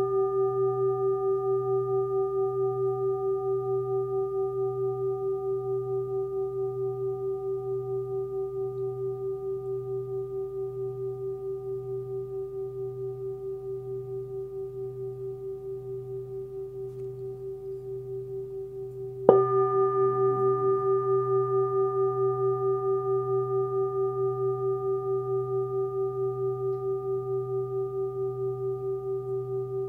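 28 cm hand-forged Tibetan singing bowl, tuned to about 126 Hz (B), ringing with a low pulsing hum and bright upper overtones, slowly fading. It is struck again about two-thirds of the way through and rings on, louder, then fades again.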